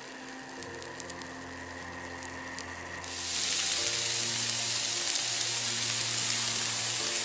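Thin milk crepe batter frying in a hot pan: faint crackling at first, then about three seconds in a loud, steady sizzle sets in.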